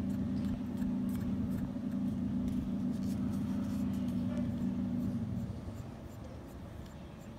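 Small electric pet hair clipper running with a steady low hum, which stops about five seconds in.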